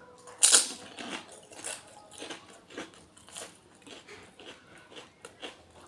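A crisp, empty fuchka (panipuri) shell bitten with a loud crunch about half a second in, followed by steady crunching as it is chewed close to the microphone.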